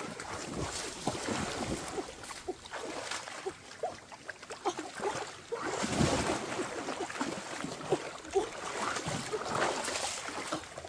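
Water splashing and sloshing in irregular bursts, with small gurgling plops throughout.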